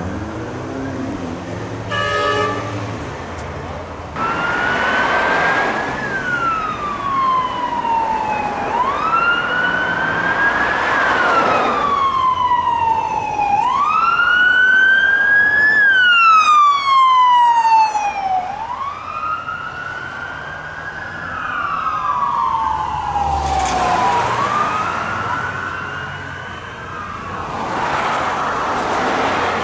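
Police car electronic siren on wail, a slow rise and fall repeating about every five seconds, from the siren of an LAPD Ford Police Interceptor Utility on a code-3 response. It is preceded about two seconds in by a brief horn blast, and a passing vehicle's rush swells near the end.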